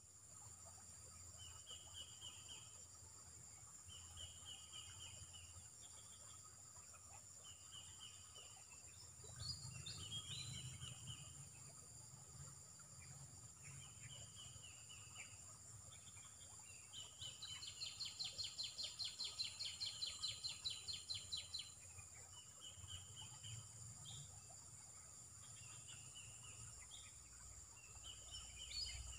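Birds calling softly: short chirped phrases every couple of seconds, and a faster run of pulsed calls for about five seconds midway. A steady high-pitched insect whine runs underneath.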